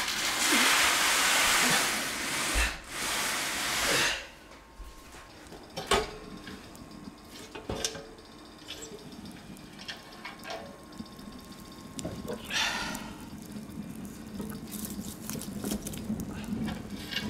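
A large cardboard box scraping and sliding across the floor as it is pushed, a long, even rushing noise. Then a wood fire crackling in a wood-burning stove, with sparse sharp pops and a short rush of noise about two-thirds of the way through.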